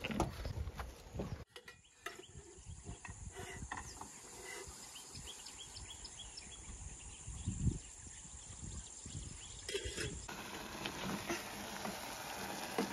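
Outdoor ambience: wind buffeting the microphone with low rumbles, and faint, short wildlife chirps scattered through the middle. The sound changes abruptly twice as the scene cuts, with an even hiss in the last few seconds.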